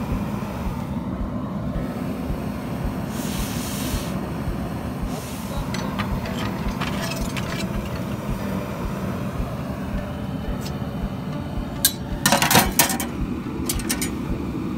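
A steady low roar throughout. A few light metal clinks from raku tongs come about six to seven and a half seconds in. About twelve seconds in there is a short, loud rush of rustling noise as sawdust is thrown over the hot piece.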